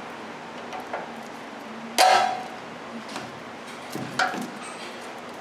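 Hand tool clinking against the steel tie rod end as a rusted cotter pin is levered out: four sharp metallic clinks with a short ring, the loudest about two seconds in.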